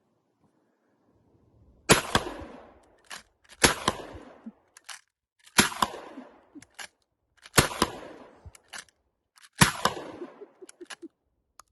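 Winchester 1897 pump-action shotgun fired five times, about two seconds apart, with the pump action clacking between shots. It is being slam-fired: the trigger is held down and each shot goes off as the pump is racked closed.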